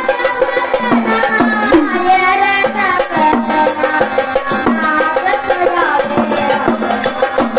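Marathi gondhal folk music: a high voice sings a winding melody over a fast, steady drum beat.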